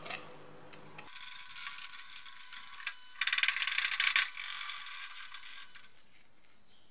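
Brush scrubbing a greasy CV joint and output shaft in a parts washer with solvent running, in rapid scratchy strokes loudest about three to four seconds in. A low hum cuts off about a second in.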